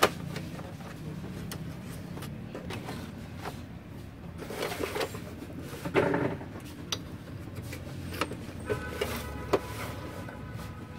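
Plastic clicks and knocks from an Epson LX-300+ dot-matrix printer's casing and parts being handled and fitted back together, with the loudest knock about six seconds in.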